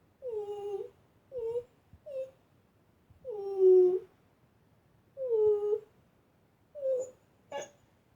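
An old dog whining in a series of about seven short, squeaky cries, each dropping in pitch. The longest and loudest comes about halfway through.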